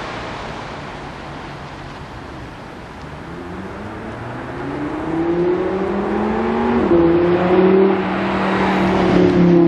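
A car accelerating on a nearby road. Its engine note rises in pitch and grows louder from about four seconds in, dips at a gear change around seven seconds, and climbs again, over a steady hiss of surf.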